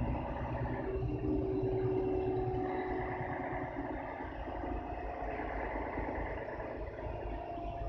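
Inside the cabin of a 2001 Mercedes-Benz O530 Citaro city bus: its OM457 hLA straight-six diesel running at low load, a steady low rumble that fades slightly toward the end.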